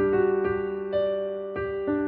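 Background music: soft electric piano playing sustained notes that change every half second or so.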